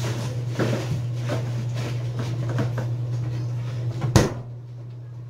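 Kitchen handling noises: a run of light knocks and rustles, then one sharp knock about four seconds in, over a steady low hum.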